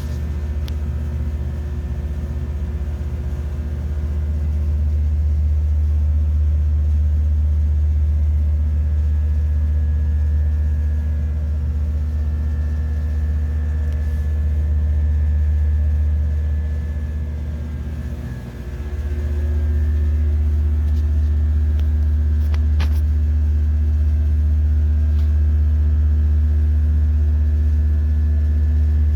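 Steady low rumble of running machinery with constant humming tones over it. It dips briefly about eighteen seconds in, then picks up again.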